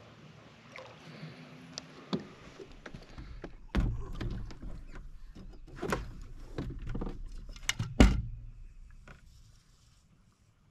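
A string of knocks and thumps on a bass boat's deck while a hooked fish is being landed, as the landing net and the angler's feet bump the deck. The loudest thump comes about eight seconds in.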